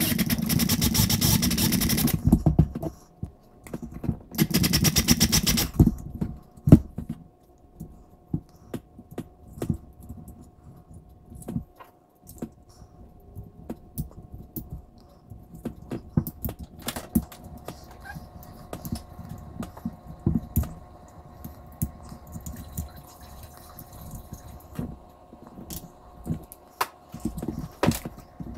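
Electric drill run in two short bursts, drilling out the rivet that holds a diecast toy truck's metal base. After that come scattered small clicks and scrapes as the metal and plastic parts are handled and pried apart.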